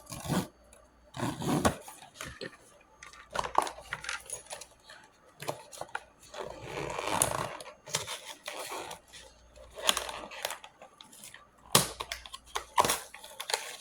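A small blind-box package being handled and opened by hand: scattered clicks and taps of cardboard and plastic, with a longer stretch of crinkling or tearing packaging about seven seconds in.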